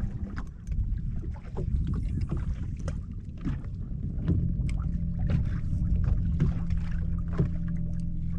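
Water lapping and slapping against a bass boat's hull in short irregular splashes, over a low wind rumble on the microphone; a steady low hum joins about four and a half seconds in.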